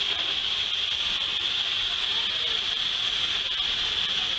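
Steady hiss of escaping steam from a steam locomotive, even and unbroken.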